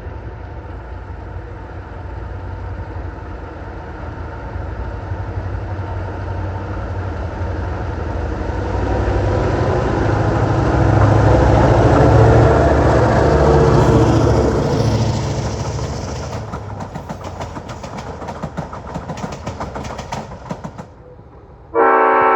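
EMD GP9 diesel-electric locomotive passing: its 16-cylinder 567 engine rumble builds up, peaks and fades away, with wheels clicking rapidly over rail joints as the train goes by. Near the end a locomotive air horn sounds loudly, several notes together.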